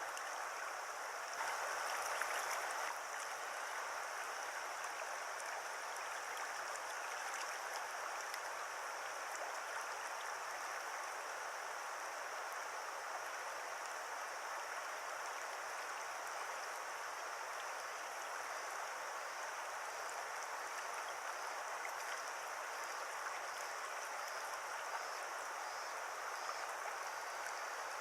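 River water flowing steadily over a shallow riffle: an even, constant rushing, slightly louder for a moment just after the start.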